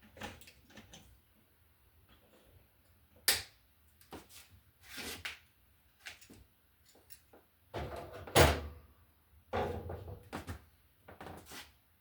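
Irregular sharp clicks, knocks and rustles of hand tools and stiff wires being handled at an electrical box, with two louder clicks about three seconds in and again past the middle.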